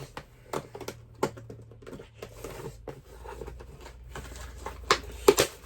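Toy packaging being handled and pulled at as a doll is worked free: scattered plastic and cardboard clicks and rustles, with a few sharper clacks near the end.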